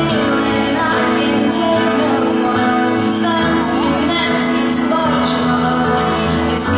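Female vocalist singing a slow ballad live into a microphone, over sustained accompaniment from guitar and piano.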